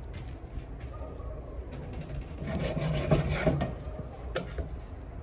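A large knife cutting rabbit meat on a wooden chopping block: the blade, the meat and the wood rub and scrape, louder between about two and a half and three and a half seconds in. A single sharp knock comes about four and a half seconds in.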